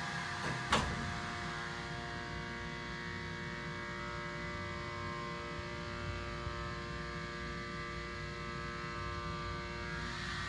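Otis hydraulic elevator's pump motor running behind the machine-room door, a steady hum of several tones. There is a sharp click about a second in, and some of the tones drop out near the end.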